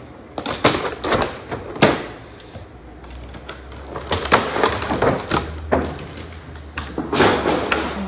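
Clear plastic packaging wrap being handled and pulled off the pieces: irregular crinkling and rustling with several sharper crackles.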